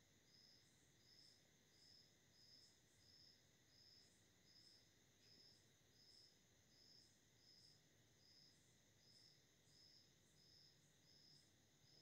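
Near silence, with a faint high insect-like chirp repeating about twice a second.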